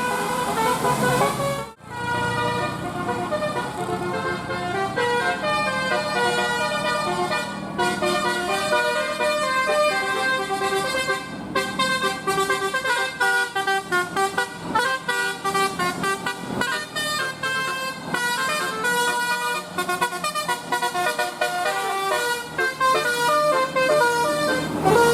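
Bus 'telolet basuri' multi-tone musical horn playing a quick melody of stepping notes, with a short break about two seconds in.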